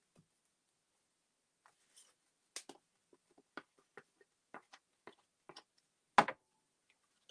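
Scattered soft clicks and crinkles of paper collage pieces being handled, then one louder knock about six seconds in.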